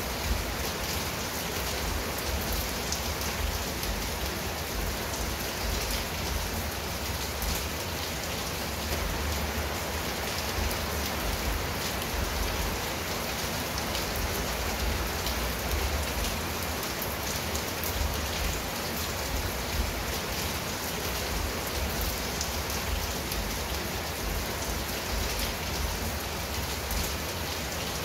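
Steady rain falling at night: a dense, even hiss of rain with many close drop ticks, and no thunder.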